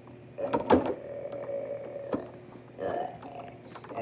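A child's voice making a drawn-out, wordless dinosaur noise for a toy dinosaur that has just been asked to speak, then a shorter one near three seconds in. A few light knocks come from the toys being handled.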